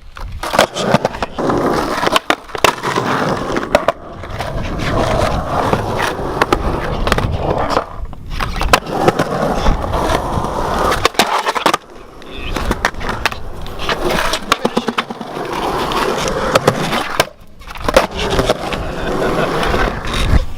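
Skateboards rolling on concrete skatepark ramps and bowl, the wheels running continuously, with many sharp clacks of boards popping, landing and hitting the coping. The sound drops out briefly several times.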